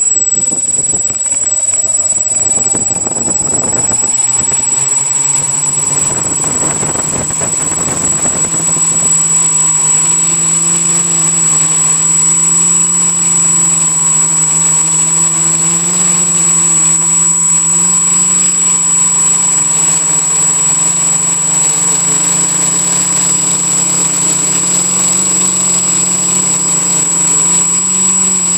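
Quadcopter's electric motors and propellers heard close up from a camera mounted on the frame. Over the first few seconds the pitch rises as the motors spin up, it wavers for several seconds, then holds steady in flight with a constant high whine.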